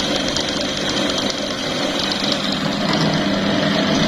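Motor of a Juki LBH-781 buttonhole machine running steadily, its belts turning on the pulleys, with an even mechanical hum.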